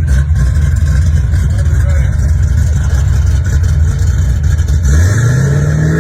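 Car engine running loudly with a deep, steady rumble, then revving up in a smooth rising pitch about five seconds in.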